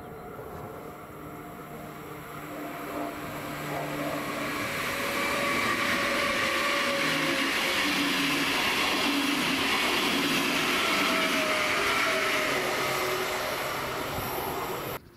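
WESTBahn class 4010 Stadler KISS double-deck electric multiple unit departing and passing close by. Its running noise builds to its loudest as it goes past, with several whining tones over the rumble, then cuts off suddenly near the end.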